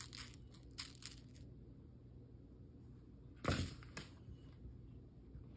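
A kitten scratching and pawing at the bottom edge of a door: a few quick scratchy clicks, then a louder scuffle against the door about three and a half seconds in.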